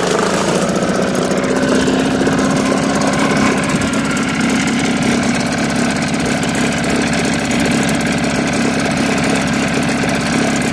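Mercury 4.5 hp two-stroke outboard running steadily in a test tub, its propeller churning the water.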